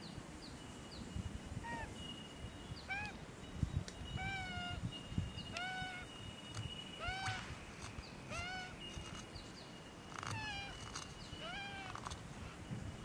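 Juvenile Australian magpie begging: a series of about a dozen short calls, each rising then falling in pitch, repeated every second or so.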